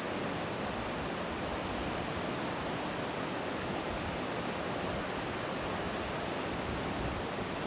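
Yellowstone River waterfall and rapids in the canyon below: a steady, even rush of falling water.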